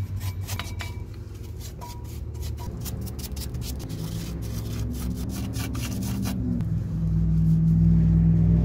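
Steel wire brush scrubbing the brake caliper bracket in quick scraping strokes, which stop about six seconds in. A low steady rumble runs underneath and swells near the end.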